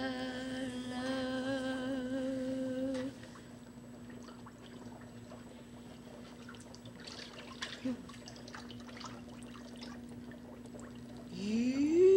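A woman hums a steady, wavering note for about three seconds, then only faint clicks are heard. Near the end, a dolphin gives a loud call that rises in pitch and then holds.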